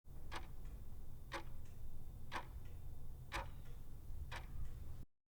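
Clock ticking once a second, five ticks each followed by a fainter second click, over a low steady hum; it cuts off suddenly near the end.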